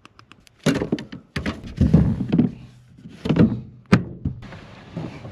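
Irregular thunks and rustling knocks of gear being handled in a truck bed, with a few small clicks at the start and a sharp click about four seconds in.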